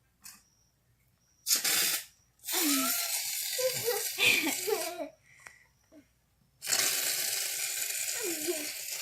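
Aerosol can of shaving foam spraying in hissing bursts: a short one about a second and a half in, a longer one of about two and a half seconds, and another starting near the seven-second mark that runs on.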